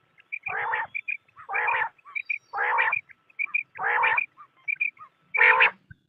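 Quail calling: five rough, throaty calls about a second apart, each about half a second long, with short high chirps between them.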